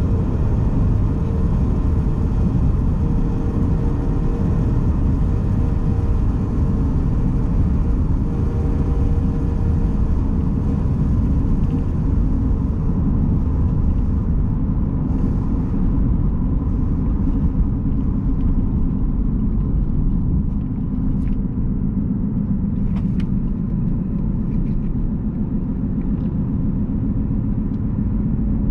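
A 2011 Jeep Grand Cherokee's 3.6-litre V6 and tyres on the move: a steady low driving rumble of engine and road noise. The higher hiss thins out about halfway through.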